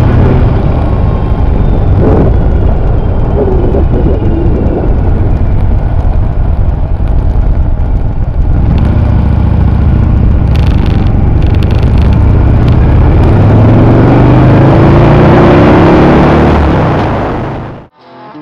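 Harley-Davidson V-twin motorcycle engine running on the highway, loud, with wind rushing over the microphone. About two-thirds through, the engine pitch rises as it accelerates and the wind grows. Near the end the sound cuts off suddenly and guitar music starts.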